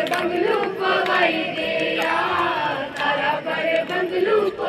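A group of voices singing together in unison, a chant-like song.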